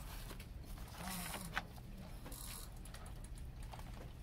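Hands handling a plastic DVD case and printed cardboard packaging: two brief scraping slides and a sharp click, with a few lighter clicks.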